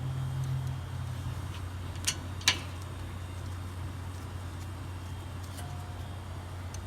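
Two short metallic clicks about two seconds in, from the rear brake caliper and its 12mm bolt being fitted by hand. They sit over a steady low hum.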